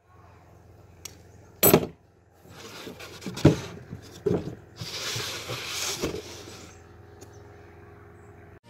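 A brad nailer fires once with a sharp crack into a plywood cabinet, then the wooden cabinet is knocked and handled: a few thuds and a longer scraping rush of wood against the table.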